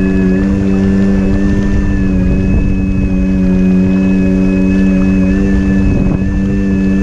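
Aeronaut Princess RC model boat's electric drive motor running at a steady cruising speed, with a steady hum and a thin high whine, over water rushing along the hull.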